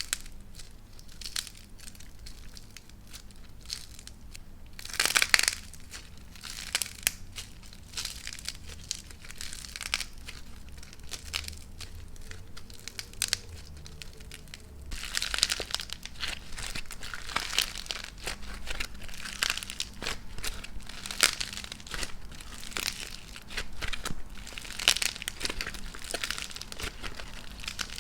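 Dried cracking clay, a star-shaped lump, crackling and crunching as it is broken and pulled apart by hand. There are scattered snaps with a loud cluster about five seconds in, then a denser run of cracks from about halfway.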